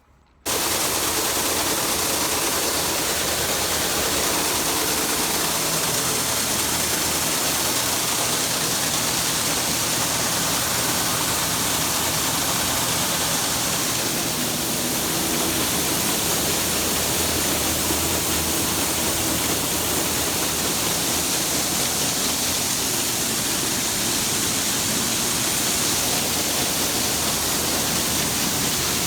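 Soybean cleaning and handling setup running: a steady, loud rush of machinery noise from a rotary screener and grain augers with beans moving through, over a low engine hum. It starts suddenly about half a second in.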